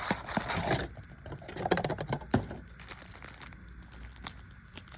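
Handling and opening a trading-card blaster box and its foil packs: crinkling, scattered clicks and light crackles of card stock and wrapping.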